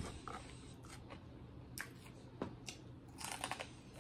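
Someone crunching and chewing crispy pork rinds: faint, scattered sharp crunches, with a quick run of them a little after three seconds in.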